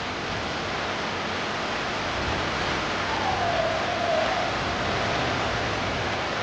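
Heavy rain pouring down on a street, a steady hiss. About three seconds in, a brief tone slides downward for about a second.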